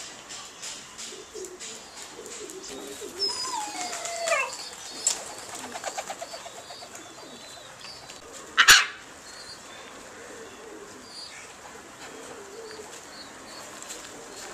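Birds calling: gliding whistled calls a few seconds in, then one short, loud, harsh call near the middle, with faint high chirps of small birds throughout.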